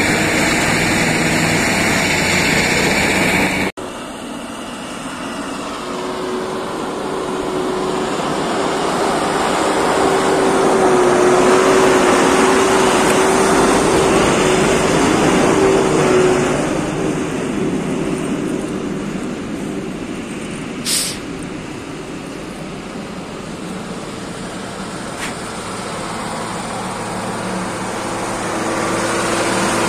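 Heavy snow-clearing machinery and trucks running: a dense engine noise with a steady hum through the middle, and a short sharp knock about two-thirds of the way in.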